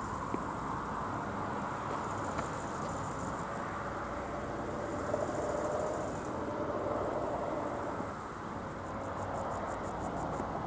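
Level crossing's classic electric warning bell (AŽD 71 type installation) ringing steadily while the crossing is closed for an approaching train. Short runs of fast, high insect chirping come and go over it.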